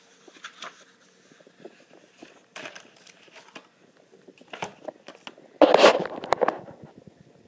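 Rustling and handling noise from a book's paper pages being turned and the recording device being moved about, as scattered small rustles and clicks with one loud rustle about six seconds in.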